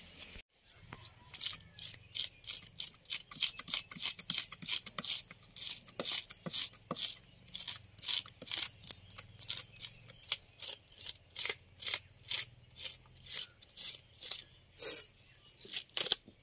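Red plastic fish scaler scraping the scales off a large catla fish, in quick repeated strokes about two a second.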